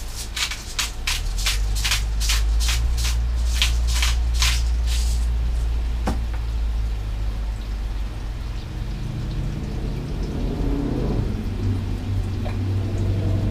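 Salt and pepper grinders being twisted over a pan of mushrooms sautéing in butter and olive oil: about a dozen short gritty grinding strokes, two or three a second, for the first five seconds. A steady low hum and the light sizzle of the pan run underneath.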